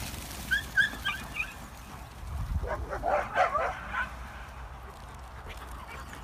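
Dogs yipping and barking: a few short, high yips in the first second and a half, then a burst of barking around the three-second mark.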